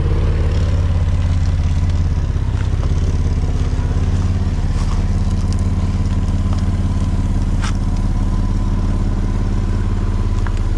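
Toyota LandCruiser 4WD engine running steadily at low revs as the vehicle crawls over a rocky track, with a few light clicks of stones under the tyres.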